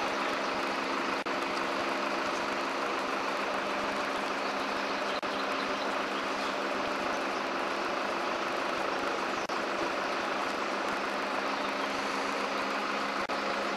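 Crane truck's engine running steadily, an even hum with no change in speed.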